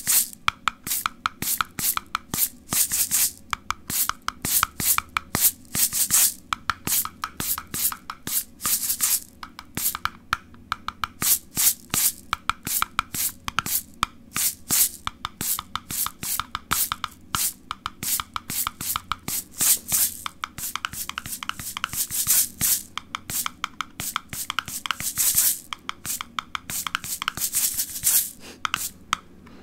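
Rhythmic ASMR tapping: fast runs of sharp taps, several a second, with short pauses between runs.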